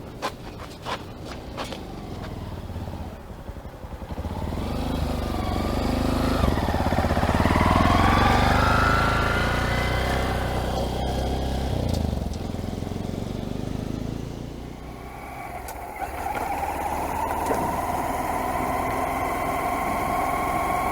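2022 Honda Monkey's small single-cylinder engine pulling away and accelerating, its pitch climbing for several seconds, then easing and running at a steady cruising speed near the end.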